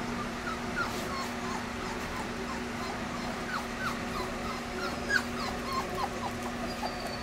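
A litter of young puppies whimpering, many short high squeaks scattered throughout, over the steady hum of an electric fan.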